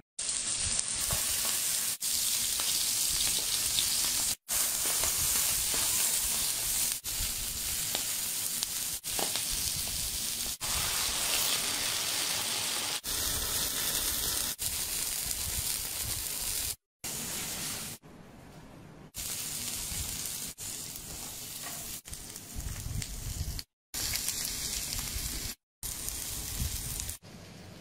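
Food sizzling on a hot stone grill slab: a steady hiss, broken by abrupt cuts and a few short silent gaps.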